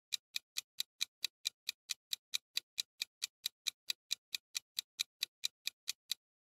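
Clock-like countdown-timer tick sound effect, evenly spaced at about four and a half ticks a second. The ticking stops shortly before the end as the answer time runs out.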